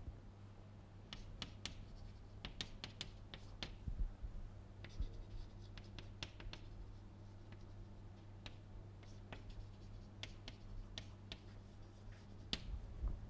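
Chalk writing on a blackboard: a string of short sharp taps and scratches as the words are written, over a steady low hum.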